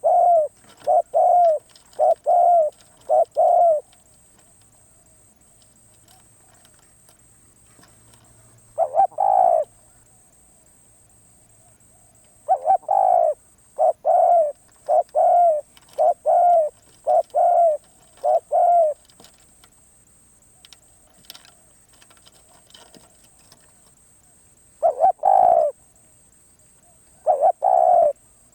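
Spotted dove cooing in runs of low, repeated notes. There is a run of about four coos at the start, a short pair about nine seconds in, a longer run of about seven in the middle, and two short pairs near the end.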